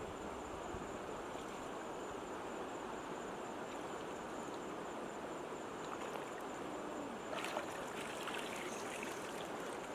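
Shallow stream water trickling and lapping as hands work in the water inside a bamboo fish trap, with a short burst of splashing about seven seconds in as the trap is lifted.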